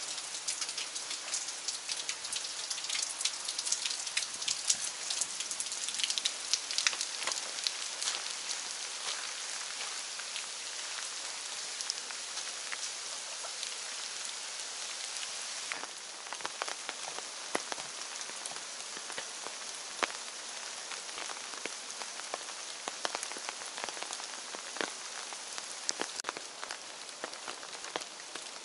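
Rain falling through forest: a steady hiss with many sharp, close drop taps. It gets a little softer about halfway through.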